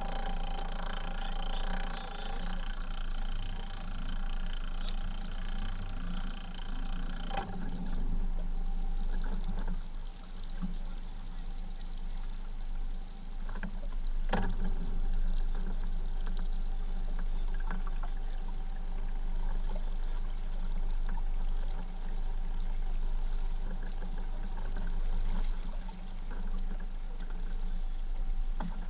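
Water lapping on a small aluminium fishing boat's hull over a steady low hum, with two sharp knocks, about seven and fourteen seconds in.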